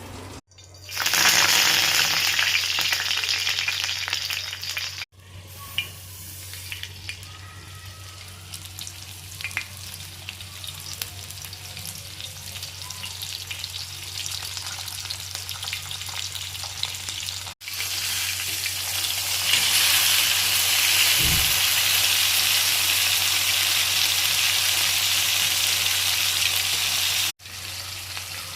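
Bangda (Indian mackerel) frying in hot oil, a dense steady sizzle. It is loudest for the first few seconds and again through most of the second half, and it breaks off abruptly several times. A low steady hum runs underneath.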